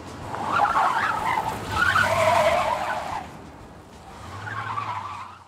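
Remote-controlled toy front loader driving through sand, its electric motor and rubber wheels churning the sand. It goes in surges: a loud stretch over the first three seconds, then a weaker one near the end.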